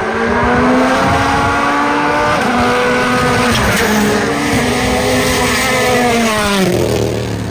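WRC rally car's engine revving hard as the car approaches at speed: the note climbs in each gear and steps down at several upshifts, then falls sharply near the end as the driver lifts off.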